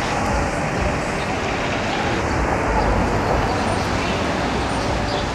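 Steady street traffic noise, with a New Flyer XD60 articulated city bus's engine running as it pulls away.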